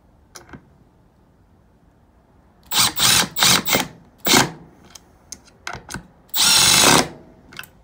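Milwaukee M12 Surge hydraulic impact driver on its mode 2 setting, driving small screws in short trigger bursts: three or four quick runs about three seconds in, then one longer run of about half a second near the end.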